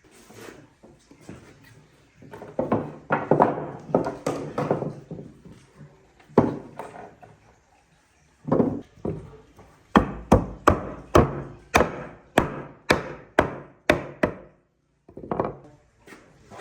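Repeated knocks of a tool striking wood: irregular clusters of blows, then a steady run of strikes about two to three a second from about ten seconds in.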